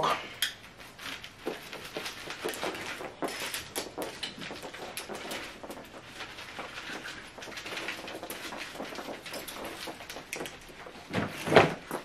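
Soft footsteps on carpet with scattered small clicks and handling rustles; no vacuum motor is running yet. A louder brief noise comes near the end.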